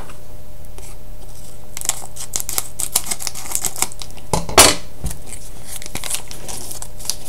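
A trading card pack being opened by hand: scattered crinkles, clicks and rustles of the wrapper and cards, with one louder rustle about four and a half seconds in.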